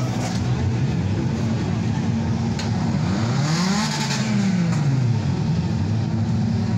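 A car engine running and being revved, its pitch climbing and falling a few times about halfway through, over the noise of a crowd.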